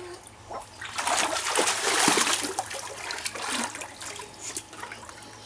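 Pool water splashing and sloshing as a child moves his body and hands through it, loudest about a second in and trailing off into softer splashes and trickles.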